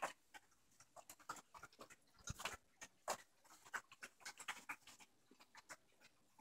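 A dog eating kibble from a plastic slow-feed bowl: faint, irregular crunching and clicking as she works the food out from between the bowl's ridges.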